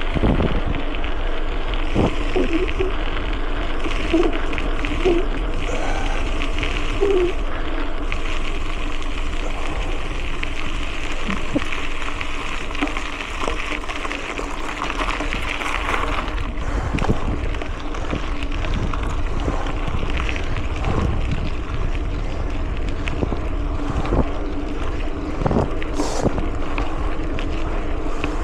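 Wind rushing over a small action camera's microphone while a mountain bike is ridden, with steady tyre rumble and scattered knocks and rattles from the bike over the ground.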